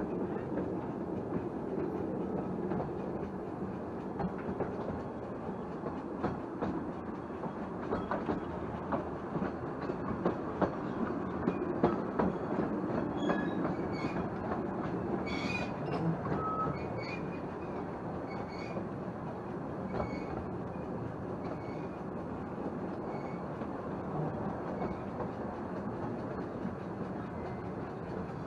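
Narrow-gauge railway carriage rolling along the track, heard from inside the carriage: a steady running rumble with scattered clicks from the wheels over rail joints and points, and short high wheel squeals in the middle stretch.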